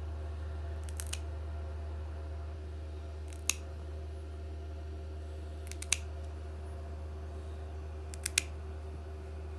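Nail clippers snipping a cat's claws: sharp clicks, often two in quick succession, at irregular intervals a couple of seconds apart, over a steady low hum.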